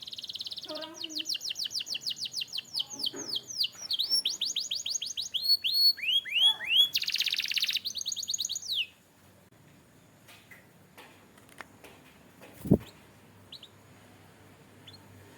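Canary singing a run of fast trills: rapid repeated down-sweeping notes in several rolls that change speed and pitch, breaking off about nine seconds in. Afterwards a few faint chirps and a single sharp knock.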